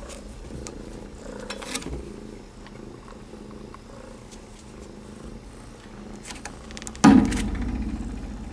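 Gray tabby kitten purring steadily close to the microphone, with faint rustles of fur. About seven seconds in there is a sudden loud bump against the microphone, and the purring is much louder for a second or so after it.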